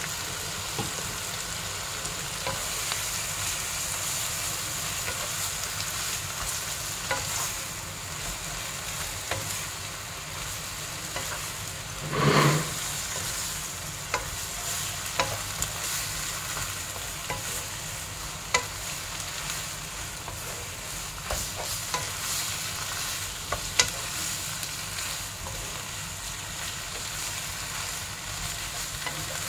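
Cabbage and bok choy sizzling as they are stir-fried in a nonstick wok, with a wooden spatula scraping and clicking against the pan at irregular moments. One brief louder sound stands out about twelve seconds in.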